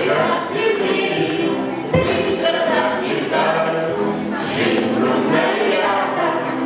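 A small group of adult amateur voices singing a song together, holding notes in a chorus.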